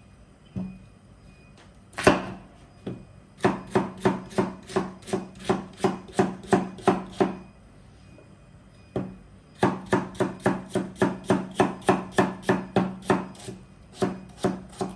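Large kitchen knife chopping raw potatoes on a round wooden cutting board. A single sharp knock comes about two seconds in, then two runs of quick, even chops at about four a second with a pause between them.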